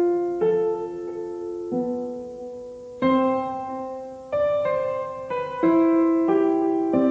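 Background piano music: held chords struck one after another, a new chord about every second or so, each fading a little before the next.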